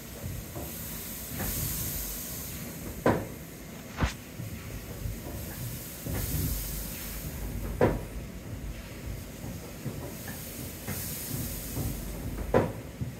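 Restored 1861 West Point Foundry steam engine of a sugar cane mill running slowly: steam hissing in long puffs about every four to five seconds over a steady low rumble, with several sharp metallic clanks.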